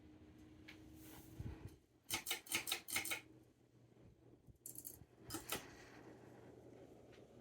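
A quick run of about five sharp clicks, then two or three more a couple of seconds later, over a faint steady hum.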